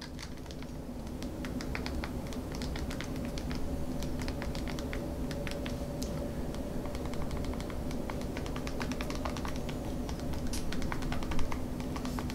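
Keypad buttons of an LG 440G flip phone being pressed, a quick irregular run of small plastic clicks, over a steady low hum.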